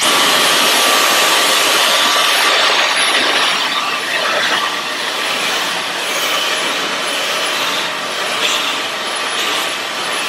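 Dyson V11 Torque cordless vacuum running in handheld mode, switching on abruptly with a steady rushing motor noise and a faint high whine, its stiff-bristle brush tool worked over a fabric sofa cushion. It is running on its normal power setting, not Boost, and the suction is not very hard at all.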